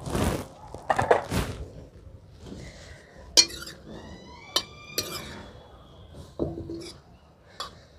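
Utensils clattering, then a long steel ladle stirring in a heavy iron kadhai: sharp metal clinks against the pan, a few of them ringing briefly, with lighter scraping clicks in between.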